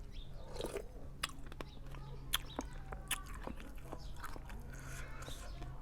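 Irregular sharp clicks and clinks of utensils against a bowl, with eating sounds, over a steady low hum.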